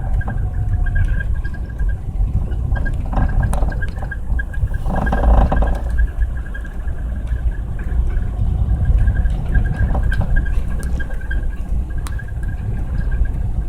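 Honda Passport 4x4 driving on snowy roads, heard from inside the cabin: a steady low rumble of engine and tyres. A faint rapid high ticking runs through it, and a short louder scrape or thump comes about five seconds in.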